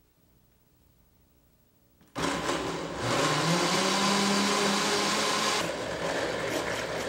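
Countertop blender switched on about two seconds in, its motor climbing up to speed and running loud as it blends fruit, yogurt and juice. The sound drops somewhat a little before the end.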